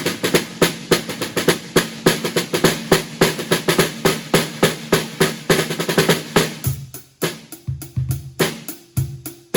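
Snare drum struck with wooden drumsticks in a quick run of strokes, several a second. About two-thirds of the way through, this gives way to slower, deeper drum hits lower in pitch.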